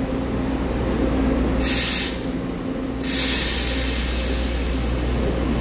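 EMU900 electric multiple unit standing at the platform, its equipment giving a steady low hum. Air hisses from it briefly about a second and a half in, then again for longer from about three seconds in.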